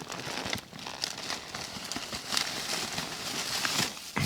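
A cat chewing and eating fish close by: an irregular run of short, wet clicks and snaps.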